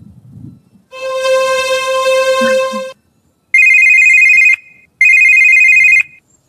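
A steady held tone for about two seconds, then a mobile phone ringtone that rings twice, each high-pitched ring about a second long.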